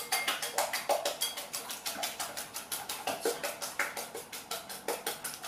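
Wire balloon whisk beating eggs in a glass mixing bowl, the wires clicking against the glass in a fast, even rhythm of about five or six strokes a second.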